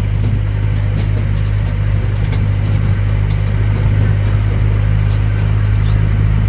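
Tourist road train's engine running steadily as it drives along: a constant low hum with a few faint ticks above it.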